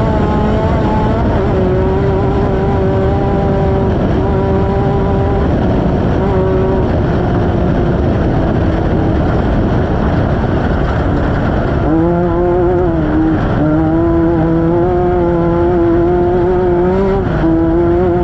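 Off-road race vehicle's engine running hard at high revs, its droning note holding steady, then dipping and climbing back about twelve seconds in and again a second or so later, over heavy constant noise.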